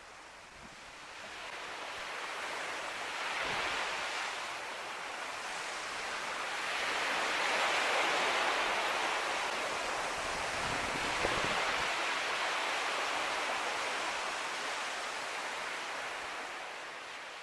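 Waves washing onto a beach: a broad hiss that swells and eases every few seconds, with two soft low thumps.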